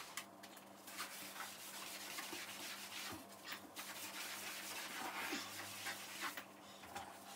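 Wet sponge rubbing and scrubbing over a greasy painted kitchen wall, washing it down with detergent solution before painting, in uneven strokes.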